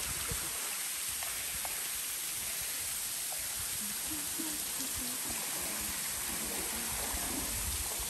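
Steady rushing of a waterfall pouring down a rock face into a pool.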